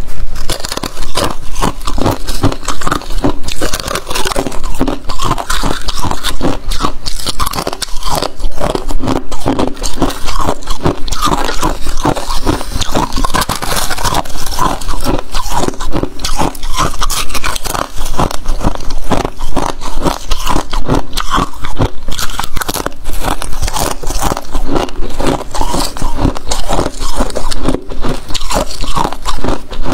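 A person biting into and chewing chunks of freezer frost, close to a clip-on microphone: a dense, rapid run of loud crisp crunches.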